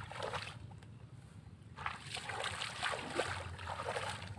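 Bare feet wading through shallow paddy water, sloshing and splashing in uneven steps, with a quieter pause from about half a second in to about two seconds in.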